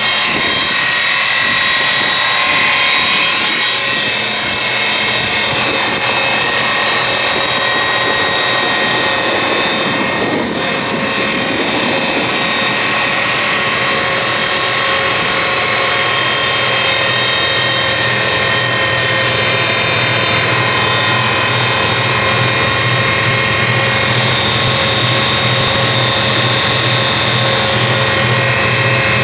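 Homemade electric outboard motor built from an angle grinder, running steadily under load and pushing the boat along, with a steady high whine.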